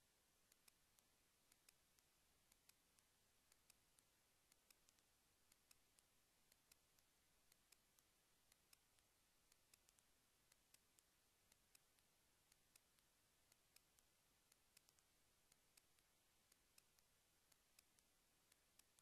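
Near silence with faint, irregular clicks, two or three a second.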